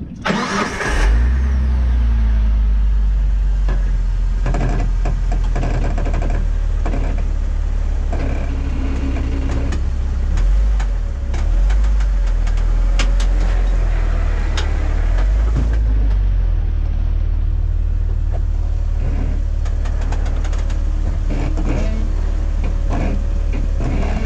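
An off-road vehicle's engine cranks and catches within the first second, then runs steadily at low revs. Scattered clicks and knocks sound over the engine.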